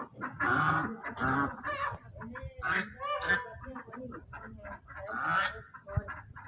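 Domestic geese honking, a string of loud calls with softer ones between.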